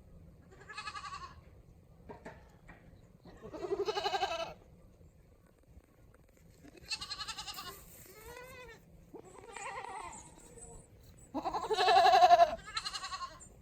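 Goats bleating: about six separate bleats, each a second or less, the loudest one near the end.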